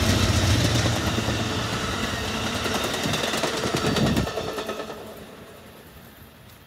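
Amtrak GE P42DC diesel locomotive and bi-level passenger cars passing close by: heavy diesel engine noise with steel wheels clicking over the rails. About four seconds in the engine sound drops away sharply, and the train noise fades as it moves off.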